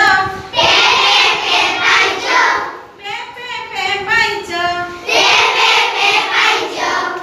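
A woman and a group of young children sing an Odia action rhyme in turns: the children sing a line together in loud chorus, then a single voice leads, then the chorus comes back.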